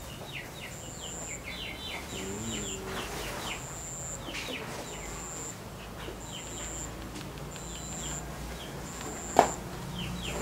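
Birds chirping in many short, quick calls over a thin high tone that pulses on and off about once a second. A single sharp click stands out near the end.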